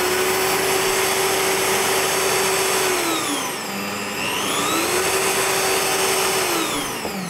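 Bosch PBD 40 bench drill press with its 710-watt motor running unloaded in second gear, a steady motor whine. The pitch falls about three seconds in as the speed dial is turned down, rises again around five seconds, then winds down near the end as the machine stops.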